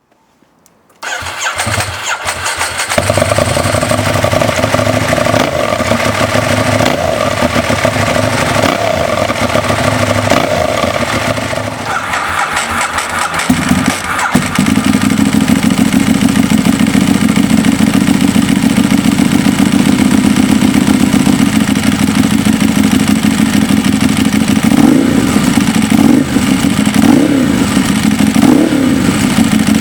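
Ducati 1098 motorcycle's 90-degree L-twin engine starting about a second in and idling steadily on an aftermarket exhaust, its note changing around the middle, then several short throttle blips that rise and fall in pitch near the end.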